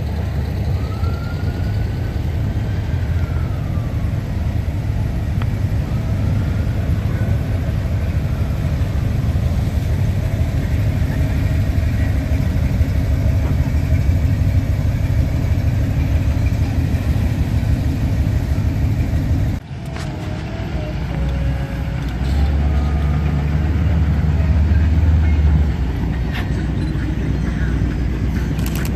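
Car engines running as cars drive slowly past one after another. The sound breaks off briefly about twenty seconds in, and a heavier, deeper engine note swells about 22 s in and drops back near 26 s.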